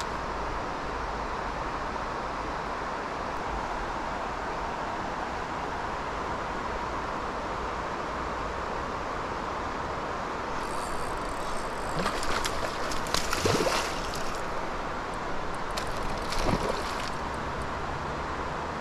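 Steady rush of a fast-flowing alpine river. From about eleven seconds in, a few seconds of clicks and rattles from close by, with a couple of short rising squeaks.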